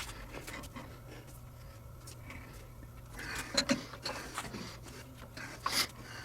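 Light metallic clicks and knocks from adjusting a workpiece in a lathe chuck. A few sharp taps come in the second half, the loudest about halfway through and again near the end.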